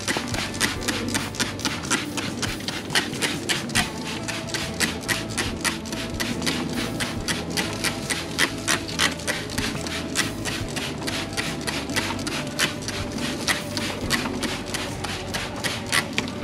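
Hand trigger spray bottle spritzing racks of ribs on the smoker grate: a quick, even run of squeezes, several a second, each a short hiss of spray.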